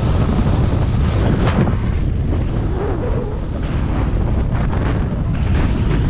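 Strong wind and the rush of flight air buffeting the microphone of a camera carried under a speed wing: a loud, steady, low rumble with gusty surges. The wind was blowing about 22–26 mph.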